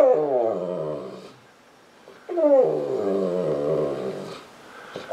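Saint Bernard crying for attention in long, baby-like moans: one falling cry at the start, then a second, longer cry about two seconds in that slides down in pitch, and a third just beginning at the end.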